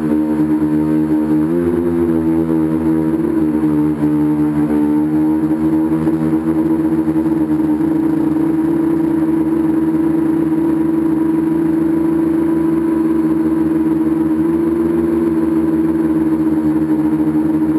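Tricopter's three motors and propellers buzzing steadily in flight, heard from its onboard camera; the pitch jumps up about a second and a half in, wavers for a few seconds, then holds level.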